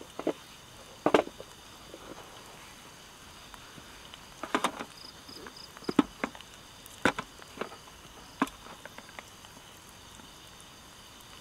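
Plastic snap-lock food container being handled and its clip-on lid opened and lifted off: about six sharp plastic clicks and knocks, scattered over the first nine seconds. Insects call steadily in the background.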